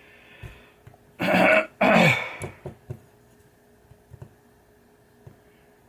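A man clearing his throat: two loud, rough rasps in quick succession, about a second and two seconds in, followed by a few faint ticks.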